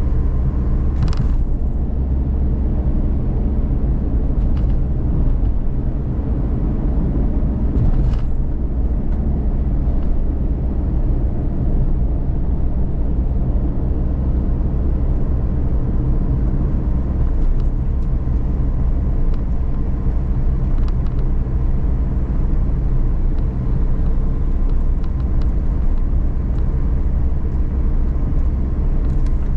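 Inside the cabin of a Suzuki Every DA17V kei van on the move: the small three-cylinder engine and road noise make a steady low rumble, with a couple of faint short ticks of interior rattle.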